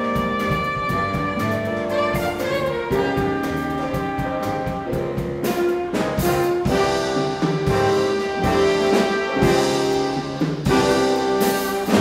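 Jazz big band playing: saxophones, trumpets and trombones in held ensemble chords over piano, upright bass, guitar and drums. The brass comes in fuller and louder about halfway through.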